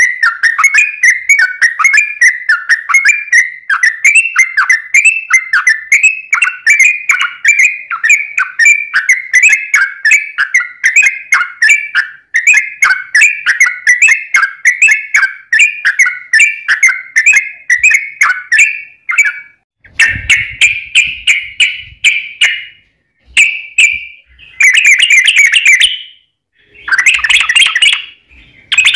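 Yellow-vented bulbul (trucukan) singing a long rapid run of short, bubbly down-slurred chattering notes, several a second. After about twenty seconds the run breaks into shorter, louder separate phrases with brief pauses between them.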